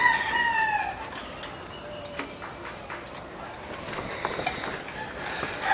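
A rooster crowing: a crow trails off with a falling end in the first second, and another begins near the end. A few faint clicks and knocks fall in between.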